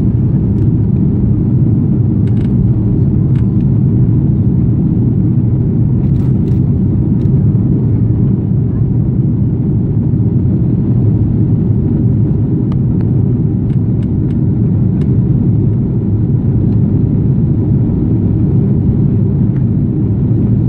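Jet airliner's cabin noise during the climb after takeoff, heard from inside the cabin: a steady, deep roar of engines and airflow, with a few faint ticks from the cabin.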